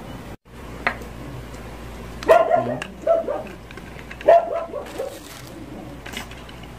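Dog barking in about three bursts of quick, short barks, starting about two seconds in.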